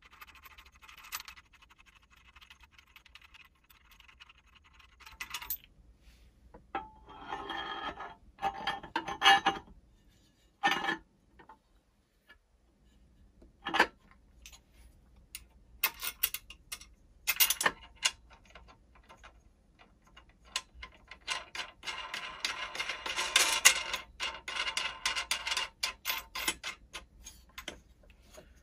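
Telescope tripod being assembled by hand: the accessory tray is fitted onto the central rod and screwed down, giving scattered clicks, taps and scrapes, with a longer stretch of clattering and rubbing near the end.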